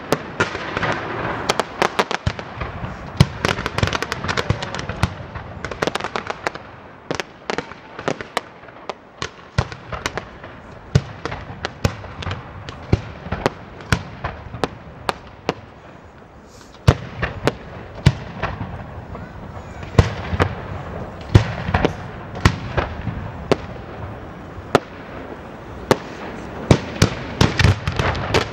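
Fireworks display: a fast, unbroken string of sharp bangs and crackling reports from shells bursting, several a second over a steady hiss. The bangs thin out somewhat in the middle, then come thicker and louder again for the last stretch.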